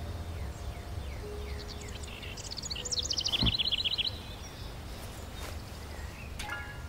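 Outdoor ambience with birds chirping over a low steady rumble. A fast, high trill of chirps runs from about two and a half to four seconds in and is the loudest part, with a shorter call near the end.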